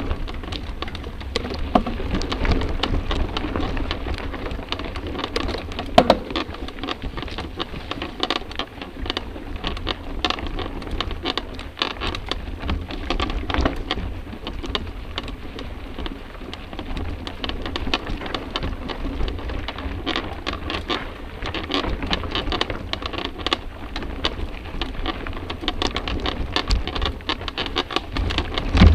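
Mountain bike riding over rough dirt singletrack, heard through a camera mounted on the bike: a dense, irregular clatter of rattles and knocks from the bumpy trail and tyres on dirt, over a low wind rumble. A sharper knock stands out about six seconds in.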